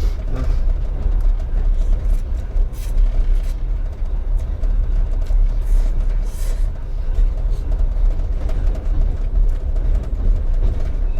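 Passenger train running, heard from inside a sleeper compartment: a steady low rumble with a few faint clicks.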